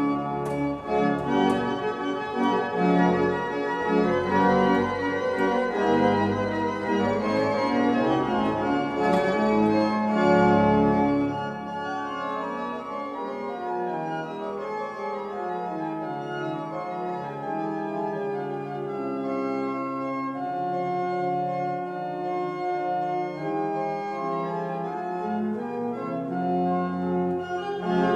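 Church organ playing a polyphonic improvisation in concerto style, with sustained chords and moving lines. The first part is fuller and louder, with deep bass notes. About eleven seconds in it drops to a quieter, lighter passage with little bass, and it grows fuller again near the end.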